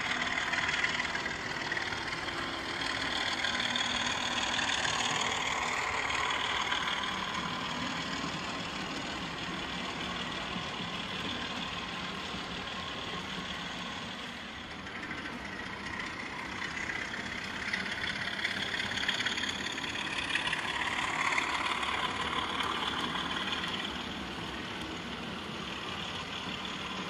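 OO gauge model diesel locomotive hauling a train of coaches, with a steady diesel engine sound and the wheels running over the track.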